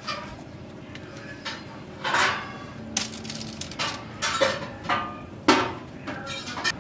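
A run of irregular knocks and clinks from objects being handled, about seven over a few seconds.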